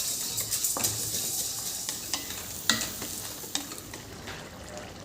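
Food sizzling in a frying pan while a spatula stirs it, scraping and tapping against the pan several times.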